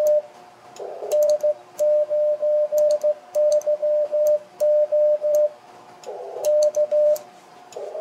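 Morse code (CW) sent on a hand key: the transceiver's sidetone, a steady mid-pitched beep keyed into dots and dashes in several groups, with sharp clicks from the key contacts as it is worked. In two of the pauses, about a second in and about six seconds in, brief bursts of filtered receiver hiss come through.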